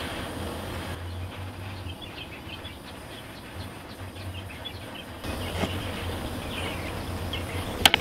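Handheld propane torch burning with a steady hiss as its flame scorches a wooden axe handle. Small birds chirp faintly, and a sharp click sounds just before the end.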